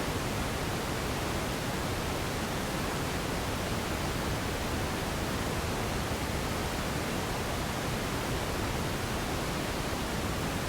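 Radio static: a steady, even hiss with no tones, clicks or changes.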